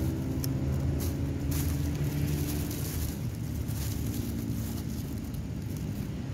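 An engine running steadily with an even low hum, with light scattered ticks over it.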